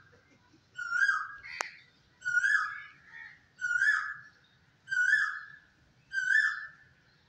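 Kitten meowing five times in a steady series, roughly one high-pitched call every second and a half, each call falling in pitch. A single sharp click comes about a second and a half in.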